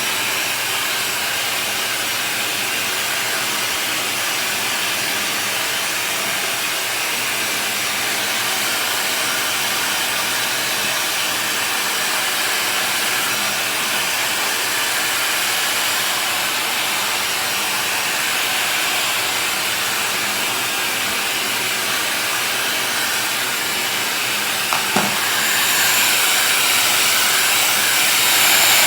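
MonoMono Dreamworld 1800-watt ionic hair dryer with an AC motor, running on a hot setting: a steady rush of air. Near the end there is a brief click and the sound grows a little louder.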